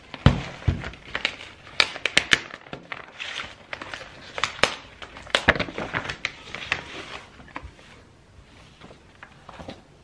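Paper wrapping being torn open and crinkled by hand, rustling in quick irregular crackles, with a dull thump about half a second in as the package is set on the table. The handling dies down after about eight seconds.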